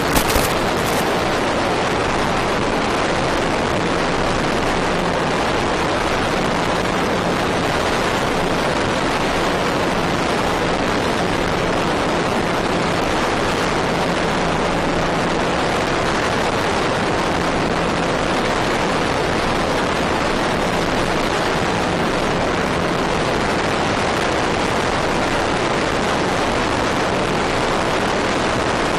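Steady, loud rushing hiss from the FPV plane's onboard recording, with a faint low hum that fades in and out.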